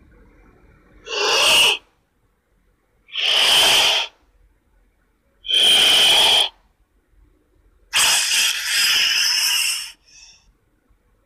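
Monster sound effect for a giant serpent creature: four separate breathy, hissing cries with short silences between them, the last one longest at about two seconds.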